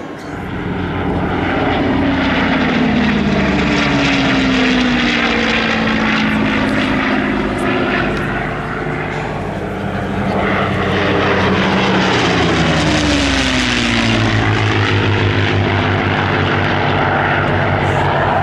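Two WWII piston fighters, a Curtiss P-40 and a North American P-51 Mustang, flying by together, their V12 engines droning loudly. The engine note falls in pitch as they pass, twice: once over the first several seconds, then again shortly after the middle.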